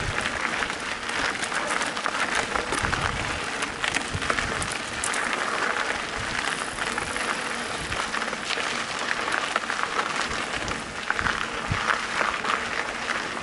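Mountain bike tyres crunching and crackling over a loose gravel trail surface, with a steady patter of small clicks and rattles from the stones and the bike.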